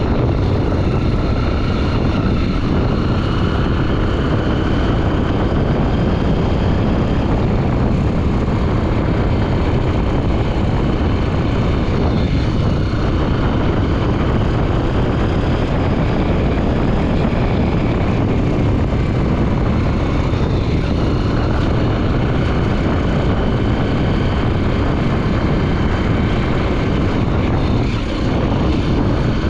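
Honda XR 250 Tornado's single-cylinder four-stroke engine running steadily on the move, its pitch drifting slowly up and down, under heavy wind noise on the microphone.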